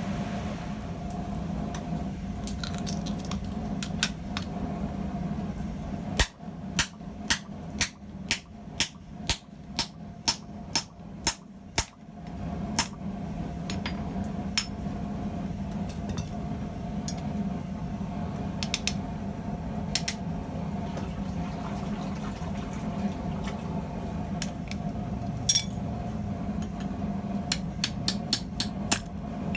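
Hand hammer striking a steel rivet in a rivet header on the anvil to form its head: a run of about a dozen sharp blows, roughly two a second, then scattered lighter taps and a quick flurry near the end, over a steady background hum.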